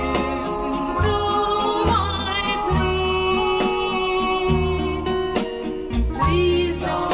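Early-1960s pop ballad recording: singing over a band, with a steady bass line and beat.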